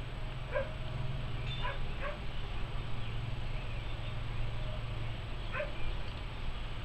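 A dog barking: short barks, three in the first two seconds and one more about five and a half seconds in, over a low steady hum.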